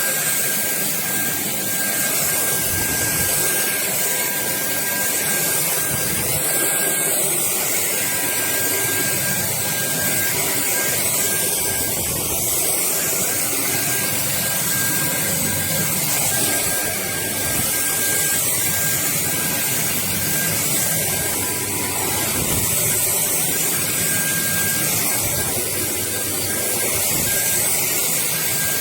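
Dreame Z20 cordless stick vacuum running steadily: a rush of air with a thin, high motor whine held at one pitch.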